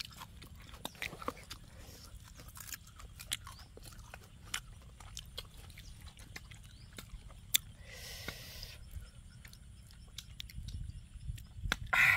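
Close-up crunching and chewing of crisp, young green ambarella fruit, with many short, sharp bites scattered through.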